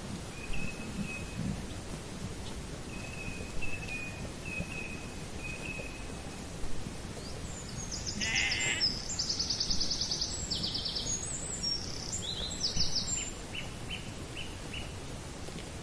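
Sheep bleating outdoors, with small birds calling. The loudest stretch is a run of quavering high calls from about eight to thirteen seconds in.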